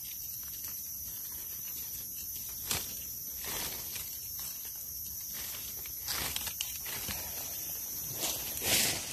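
Dry leaf litter rustling and crackling as wild mushrooms are cut from the forest floor with a knife and picked by hand, in short scattered bursts that grow busier in the second half and peak near the end. A steady high insect drone runs underneath.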